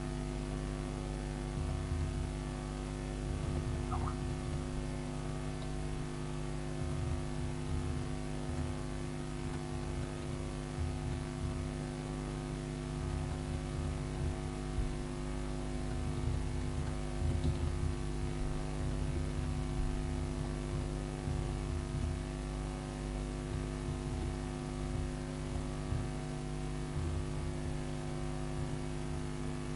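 Steady electrical mains hum, a low buzz with a ladder of even overtones, with faint irregular low rumbles underneath.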